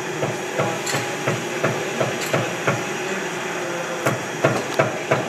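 A series of sharp knocks, about three a second at first and then more spaced out, over steady background noise.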